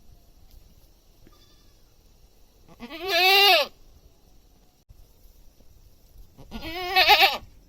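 A goat bleating twice. Each call lasts about a second. The first arches up and falls away; the second, a few seconds later, has a quavering wobble.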